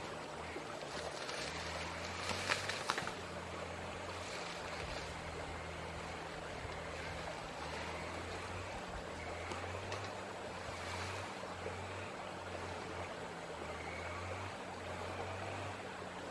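Outdoor ambience: a steady rushing hiss with a low hum that comes and goes, and a few sharp crackles about two to three seconds in.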